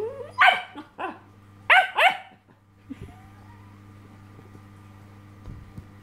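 Black puppy barking: about four high-pitched barks in quick succession in the first two and a half seconds, then it falls quiet.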